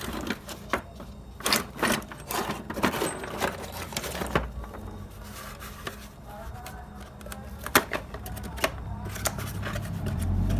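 Rummaging through tools and small hard objects: an irregular clatter of clicks and knocks as things are moved and handled.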